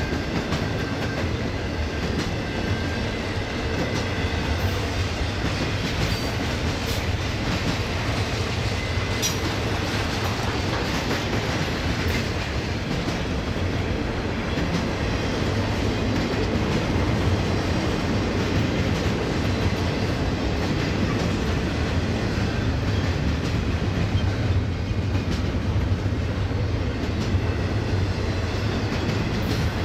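Loaded intermodal freight cars of a BNSF stack train rolling past close by in a steady, continuous rumble, with wheels clicking over the rail joints. It grows slightly louder about halfway through.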